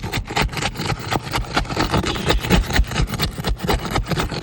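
Asphalt roof shingles being pried apart to break the sealant bond between courses: a dense run of scraping, crackling and clicking strokes.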